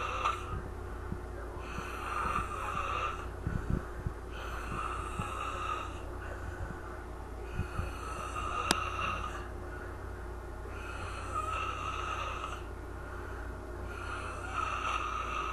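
A sleeping person snoring in slow, regular breaths, five swells about three seconds apart. A single sharp click comes about nine seconds in.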